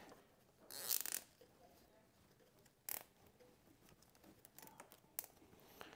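A nylon zip tie being pulled through its ratchet head: a short zipping rasp about a second in, a second brief rasp near three seconds, then light clicks and handling.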